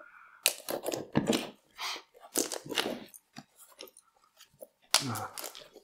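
Clear plastic shrink wrap on a small cardboard retail box being slit and torn off, crinkling and crackling in irregular bursts with short pauses between.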